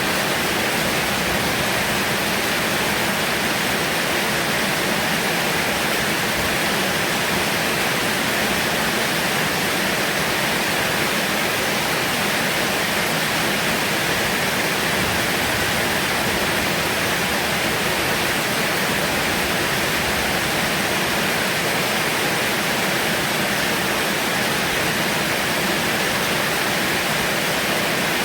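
Heavy rain falling steadily as an even, unbroken hiss.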